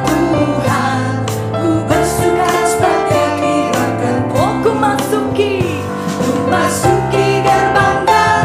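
Contemporary worship music: a band with piano and drums playing under singing, with a steady beat.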